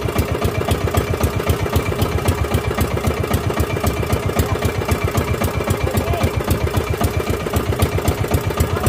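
Small engine of an outrigger fishing boat running steadily, with an even, rapid pulse.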